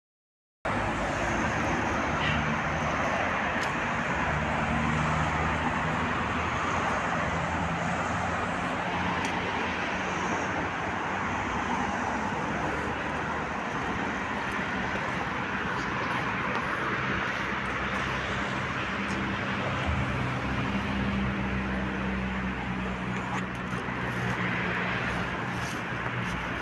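Steady outdoor road-traffic noise: a continuous din of passing cars with a low, wavering hum underneath.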